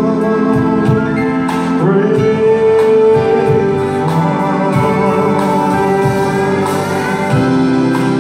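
Live country band playing: drums keep a steady beat under electric and acoustic guitars, keyboard and pedal steel guitar, with sliding notes rising in pitch about two seconds in and again near the end.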